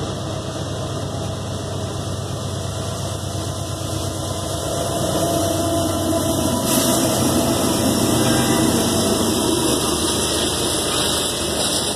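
Norfolk Southern diesel freight locomotives approaching and passing close by at speed, their engines running and growing louder from about four seconds in. After that comes a steady rush as the intermodal cars roll past on the rails.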